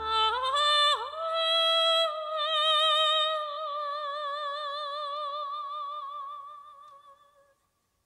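A high singing voice rises through a short phrase, then holds one long note with vibrato that fades out about seven and a half seconds in. The backing music drops away within the first second.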